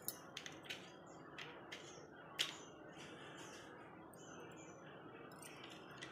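A few light clicks and taps of a spoon against a steel kadai as chili powder is spooned in, the sharpest about two and a half seconds in, over a faint steady hiss.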